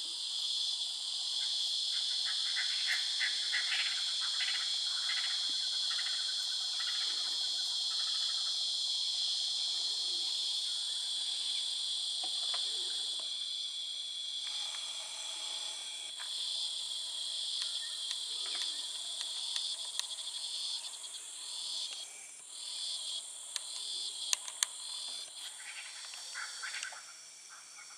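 Dusk chorus of crickets and other insects: a steady high-pitched shrill with pulsing trills coming and going over it. Near the end there are two sharp clicks.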